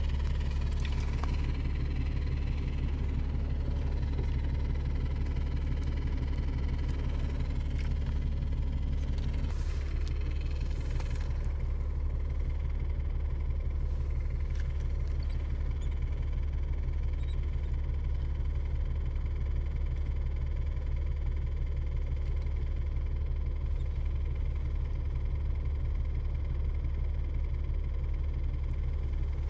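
An engine idling: a constant low rumble with a steady hum above it.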